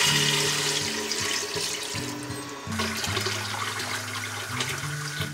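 Water pouring from a plastic jug into a stainless steel pot of fried chicken pieces, a steady splashing gush that grows quieter over the first couple of seconds as the pot fills. Background music plays underneath.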